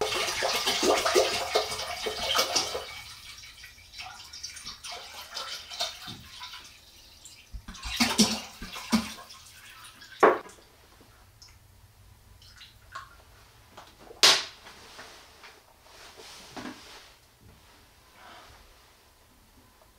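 Water poured from a large plastic jug into a stone crock, splashing loudly for the first few seconds, then falling to a quieter, uneven pour. Two sharp knocks stand out, about ten and fourteen seconds in.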